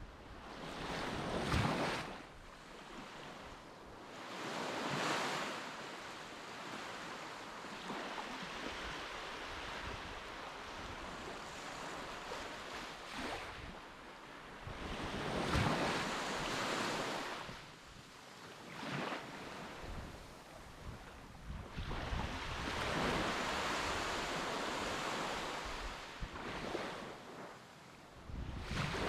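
Surf washing in on the shore in repeated swells, with wind gusting on the microphone.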